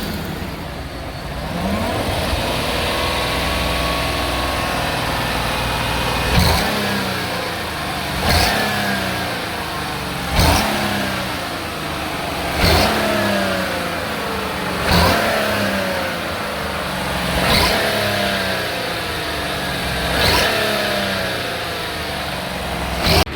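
Chevrolet car engine running, then revved in about eight short blips every two to three seconds. Each blip starts with a sharp knock and the engine speed falls back afterwards. The engine is being checked for a rattling noise.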